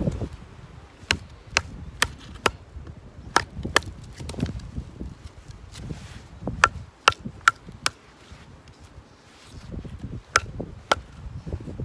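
Firewood being split by batoning: a wooden baton striking the back of a blade driven into a log. Sharp wooden knocks come in short runs of two to four, about two a second, with a pause a little after halfway.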